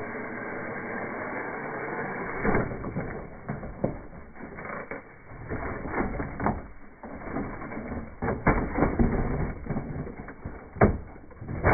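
Radio-controlled Bronco crawler truck tumbling down a dirt bank, its body and chassis clattering with an irregular run of knocks that starts a couple of seconds in, the loudest near the end as it comes to rest on its side in the mud.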